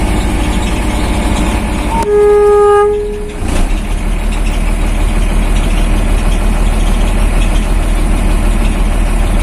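Mercedes-Benz 1417 truck's diesel engine idling steadily, heard from inside the cab. About two seconds in, a single horn blast sounds for just over a second; it is the loudest sound.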